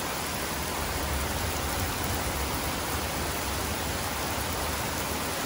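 Heavy rain pouring down steadily, an even, unbroken hiss of rainfall.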